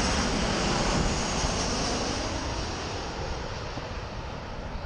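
Twin-jet airliner passing low overhead on its landing approach: loud jet noise that fades steadily as it flies away, the high hiss dying out near the end.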